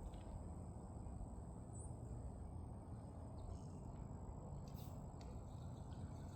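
Faint outdoor ambience: a steady low rumble with a continuous thin high-pitched tone and a few faint ticks.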